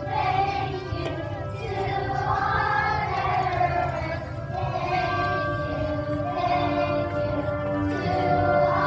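A song sung by a group of voices, in long held notes.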